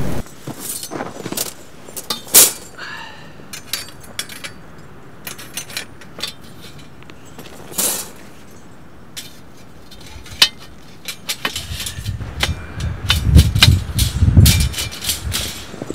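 Scattered sharp clinks and taps of a metal tool against a perforated steel fire pit, with a run of dull low thumps about three-quarters of the way through.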